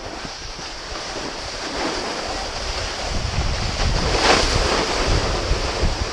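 Wind rumbling on a GoPro's microphone along with the hiss of snow sliding underfoot, growing louder as speed builds, with a brief louder hiss about four seconds in.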